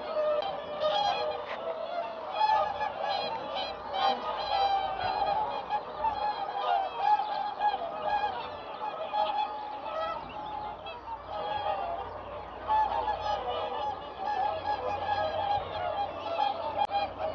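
A large flock of swans and geese calling all at once: a dense, steady chorus of many overlapping honks and trumpeting calls.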